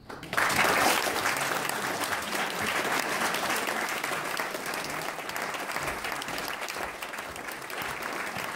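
A small audience applauding at the end of a piano piece. The clapping starts suddenly a moment in, is loudest at first and slowly eases off.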